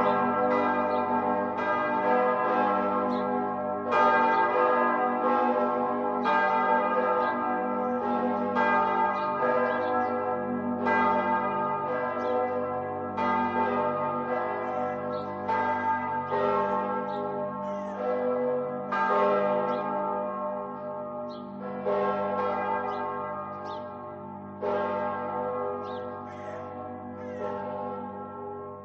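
Several church bells ringing together, their strikes overlapping at an uneven pace with long ringing tones. The ringing grows gradually quieter over the second half.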